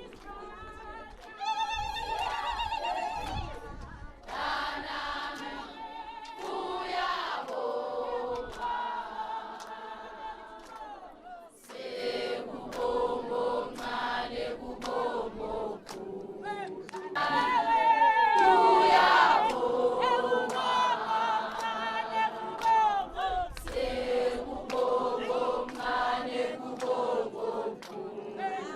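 A group of voices singing together in chorus, in sustained phrases with wavering, vibrato-like pitch, the loudest passage about two-thirds of the way through.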